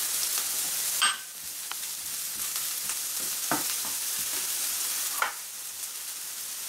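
Diced red bell peppers sizzling steadily in a hot non-stick frying pan, with a few scrapes and taps of a wooden spatula stirring them across the pan.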